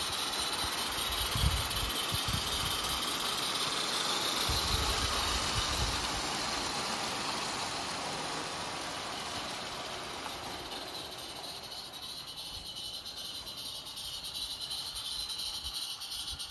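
Roundhouse Davenport live-steam garden-railway locomotive running with a train of wagons: a steady hiss of steam with the rattle of wheels on the track, fading from about six seconds in as the train moves away.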